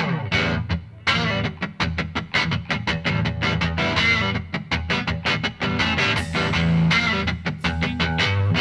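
Background music: a guitar playing a quick run of regular plucked notes over a steady bass, with a brief break about a second in.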